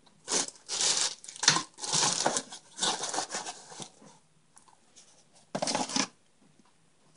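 Crinkling and rustling as packaging is handled and moved about, in a run of bursts lasting about four seconds, then one more short burst near the end.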